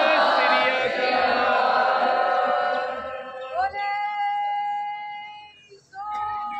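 A group of Sikh pilgrims chanting together in unison, the voices moving for the first few seconds and then drawn out into a long held note, with a second held note starting near the end.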